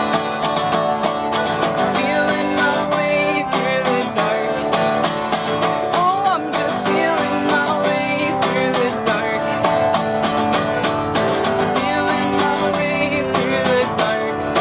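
A band playing an instrumental passage of a song: strummed guitars over a steady beat.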